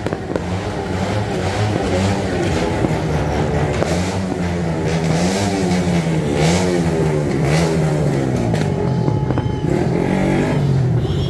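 Motor vehicle engines revving again and again, pitch rising and falling, with a few sharp pops mixed in around the middle.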